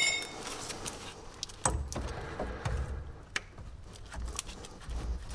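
Metal tool work on a pickup truck's front brake caliper while its pistons are pressed back with a plate: a metallic clang rings out at the start, then scattered clicks, knocks and scrapes.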